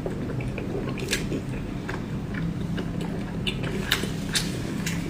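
Close-up chewing and biting of cooked pork, with scattered short wet mouth clicks and smacks.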